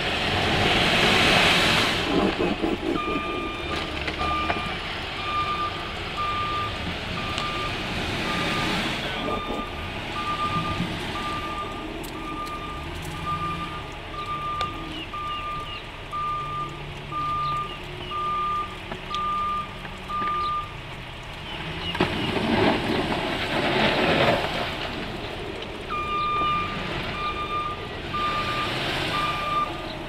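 Snowplow pickup truck's backup alarm beeping about once a second as it reverses, over its running engine; the beeping breaks off for a few seconds about two-thirds through. Several louder rushing surges of a few seconds each come as the truck drives the blade into deep snow.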